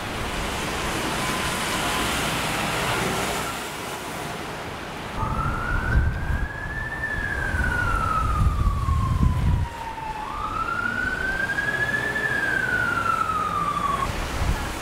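Emergency vehicle siren wailing in slow up-and-down sweeps, two full cycles starting about five seconds in, over steady street traffic noise.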